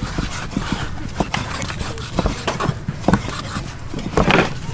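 Meat cleaver slicing raw pork belly, its blade knocking on a wooden chopping board in irregular strokes a few times a second, loudest about four seconds in.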